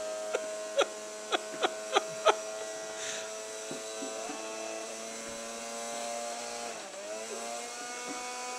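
A steady electrical hum with a buzzy edge, whose pitch sags briefly about seven seconds in. Over it, about six sharp clicks in the first two and a half seconds as a dog's plastic cone collar knocks on a hardwood floor while he picks up popcorn.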